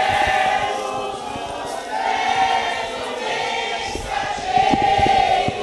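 A crowd of parishioners singing together, many voices holding long sustained notes, with a few soft thumps in the second half.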